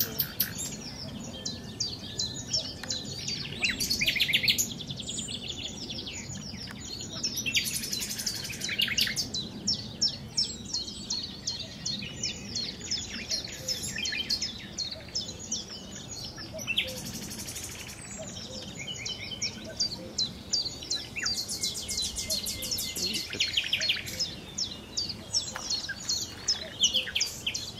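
Songbirds singing, a continual run of rapid high chirps and trills.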